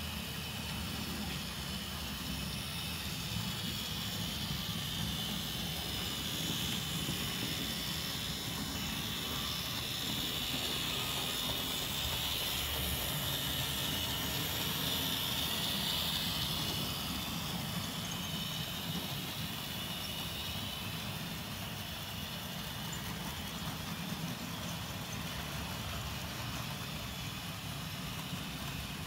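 HO-scale model steam locomotive and its train running on the layout's track: a steady low rumble with a higher hiss. The sound grows louder around the middle as the locomotive passes close by, then eases off.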